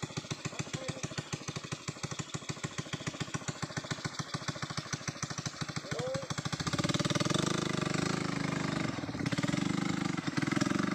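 Motorcycle engine running at a slow, even idle. About two-thirds of the way through it is throttled up and runs louder and steadier.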